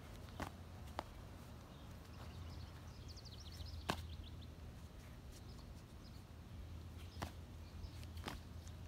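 Faint, sharp slaps of a child's slide sandals landing on asphalt as he hops, about five of them spread a second or more apart, over a low steady background rumble.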